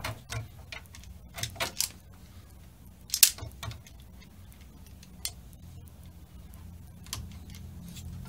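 Scattered metallic clicks and clatter as a Vise-Grip wire stripper/crimper is worked on twisted copper ground wires and a crimp connector at a metal junction box, the sharpest click about three seconds in. A steady low hum runs underneath.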